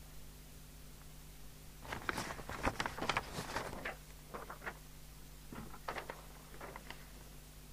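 Rustling and light clicks from things being handled on a workbench, in a dense spell about two seconds in and scattered ones after, over a faint low steady hum.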